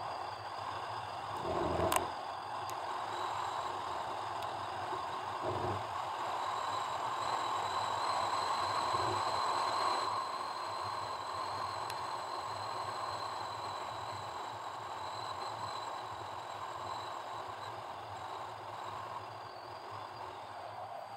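Car driving up a paved mountain road: steady tyre and road noise with the engine underneath and a faint high whine, plus a sharp knock about two seconds in and a softer thump a few seconds later, like the car going over bumps.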